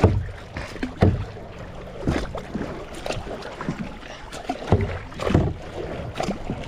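Kayak paddling: the paddle blades dipping and pulling through the water in irregular strokes, with dull knocks on the plastic hull. The water is thick with goop that drags on the strokes.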